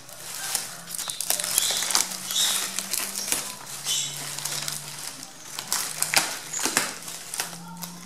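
Plastic sheeting, paper and torn cardboard packaging crinkling and rustling as a wire bird-shipping cage is handled and unwrapped, with many short clicks and rattles.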